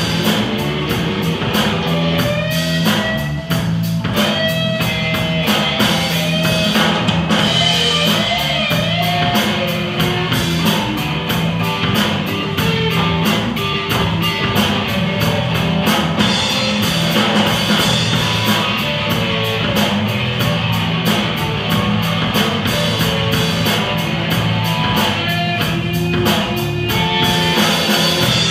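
Live rock band playing an instrumental passage: an electric guitar lead with bent notes over bass guitar and a drum kit with steady cymbals.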